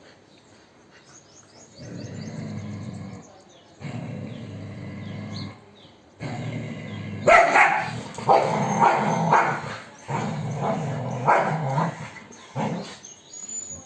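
Puppies play-fighting: low growls from about two seconds in, then louder, sharp barks and yips from about seven seconds in.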